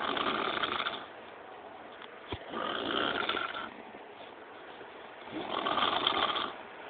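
A sleeping person snoring: three long snores, about two and a half seconds apart, with a short click a little after two seconds in.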